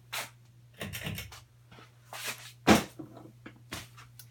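Hampton Bay Hawkins 44-inch ceiling fan running on its medium setting with a steady low motor hum. Medium runs only a little faster than low because the fan's capacitor is bad. Several short knocks sound over it, the loudest about two and a half seconds in.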